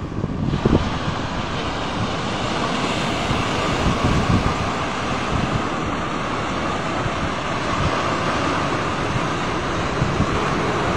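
Sea surf breaking on a sandy beach, a steady rushing noise of waves. Wind buffets the microphone with a few low gusts in the first second.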